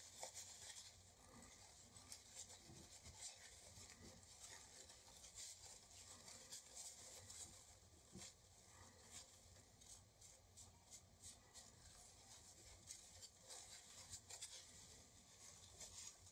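Faint handling noise of small plastic toy parts: scattered light clicks and rubbing as the toy's gear mechanism is worked on by hand.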